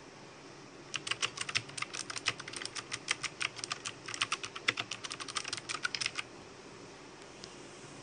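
Fast typing on an RK61 60% mechanical keyboard: a quick, uneven run of key clacks that starts about a second in and stops about six seconds in.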